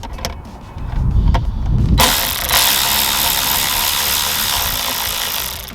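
Hand ratchet clicking as a small 9/32 bolt holding the OBD port is loosened, with some low knocking. About two seconds in, a loud, steady rushing noise starts abruptly and holds until the end.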